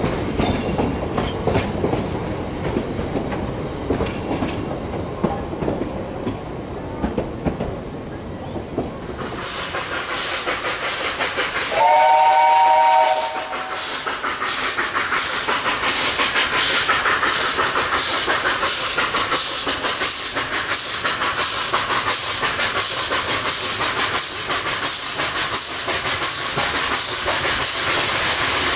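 Narrow-gauge steam locomotive gives one whistle blast of about a second and a half, then works toward the listener with steady exhaust chuffs, about two a second. Before that, for the first third, a carriage rumbles and clicks over rail joints as it runs along the line.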